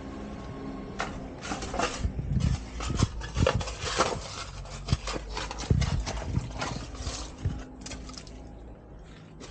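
Irregular knocks, scuffs and scrapes close by as someone climbs down an aluminium ladder into a narrow dirt trench and moves about at the bottom. They thin out near the end.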